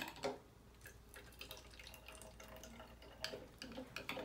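Water pushed from a plastic syringe trickling and dripping faintly into a small plastic sample bottle, with a few light clicks from the syringe and bottle being handled.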